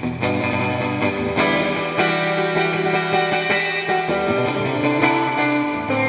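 Musima Eterna Deluxe 25 electric guitar played on a clean amplified tone: picked chords, their notes ringing on, changing every second or so.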